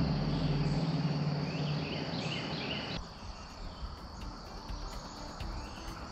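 Insects trilling steadily in a high band, with a low steady hum underneath for the first two seconds.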